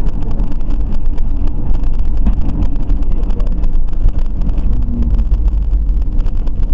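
Road and wind noise of a car driving at highway speed, picked up by a dashboard camera's microphone: a loud, steady low rumble with constant crackling.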